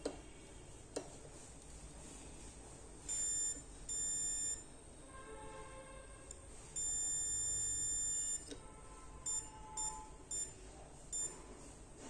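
Multimeter continuity buzzer beeping as the test probes touch the pads of a Nokia 105 keypad board. It gives two short beeps about 3 and 4 seconds in, a long beep of nearly two seconds from about 7 seconds, then a quick run of short blips near the end. Each beep signals an electrical connection between the pads being probed.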